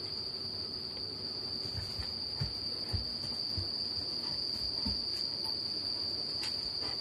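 A steady high-pitched tone holds throughout, with a few soft low thumps in the middle as a Bernese mountain dog's paws move on the tiled floor.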